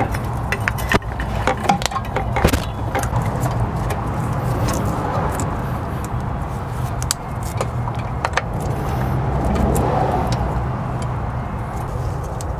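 Metal clinks and knocks as a Garrett GT1752 turbocharger is manoeuvred into place in the engine bay and worked on with tools, busiest in the first few seconds, over a steady low rumble.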